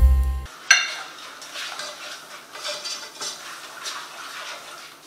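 A short bit of background music cuts off, then a utensil clinks sharply against a frying pan and goes on stirring and scraping the flour-and-oil gravy base in the pan in uneven strokes.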